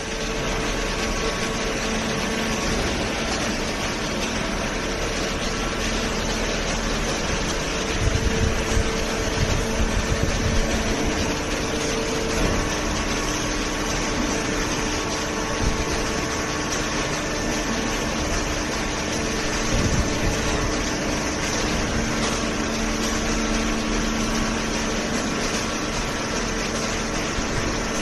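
Steady industrial machine noise of a waste-paper baling line running: the hydraulic baler's power pack and its feed conveyor, with a low hum under a dense noise. A few louder thuds come about 8 to 10 seconds in.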